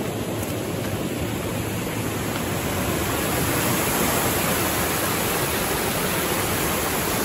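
Water rushing steadily over a low river weir, getting a little louder about three seconds in.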